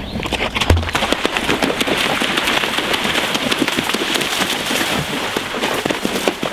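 A horse galloping through shallow water, its hooves striking and splashing in a rapid, irregular patter of slaps and sprays. About a second in there is one heavy thud, as the horse lands from a jump.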